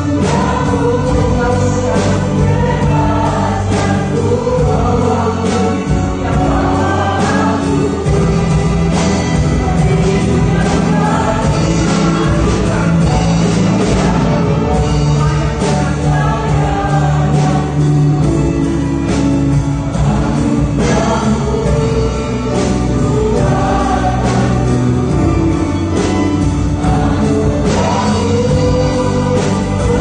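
A church worship song performed live: a group of singers, with a choir-like sound, over an ensemble of violins, cello and saxophones.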